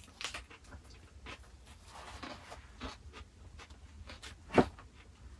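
Breakfast tableware sounds: scattered light taps and clicks of cutlery, cups and plates on a table, with one sharper knock about four and a half seconds in.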